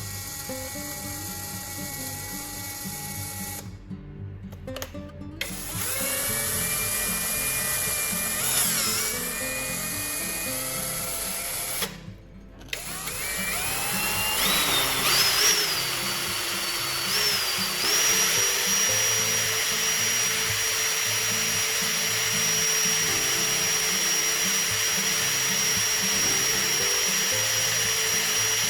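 Small electric drill or rotary tool running in several short takes, its whine rising in pitch and then holding steady, over background music with a steady beat.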